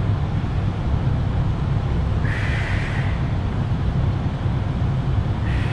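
Steady low rumble, with a short breathy exhale about every three seconds as she curls up in a chest lift: two breaths, one a couple of seconds in and one near the end.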